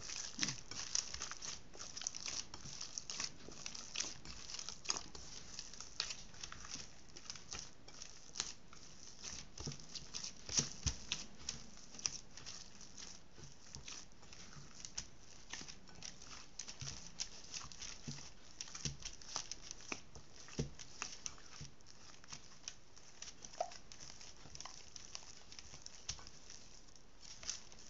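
Hands kneading soft yeast dough in a ceramic bowl: irregular wet slaps, squelches and light knocks as the dough is pressed, folded and pushed against the bowl, with oil being worked in.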